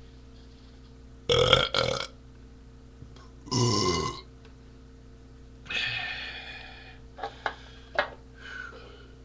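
A man belching loudly several times in a row after chugging beer. There is a double burp about a second in, a longer one with falling pitch near four seconds, then a noisier one and a few short mouth sounds near the end.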